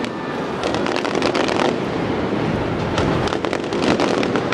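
Aerial fireworks finale: a dense barrage of rapid sharp cracks and bangs from bursting shells over a continuous loud din, thickest from about half a second to nearly two seconds in and again from about three seconds in.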